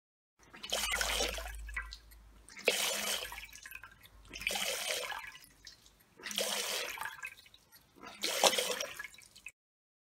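Water spurting from a rigid tube and splashing into a glass dish in five separate gushes about two seconds apart, the flow dying away between each. This is the pulsed, stop-and-go flow a rigid-walled vessel gives, with no windkessel smoothing.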